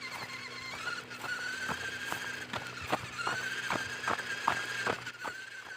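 WPL C24-1 1/16-scale RC pickup's small electric motor and gearbox whining steadily, the pitch dipping and rising a little, with irregular sharp clicks and knocks a few times a second.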